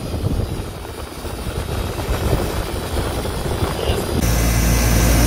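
Central air-conditioner outdoor condenser unit running, its fan blowing hot air upward in a steady rush that buffets the microphone, the sign that the unit is working and shedding heat. About four seconds in, the sound turns louder, with a steady low hum under the rushing air.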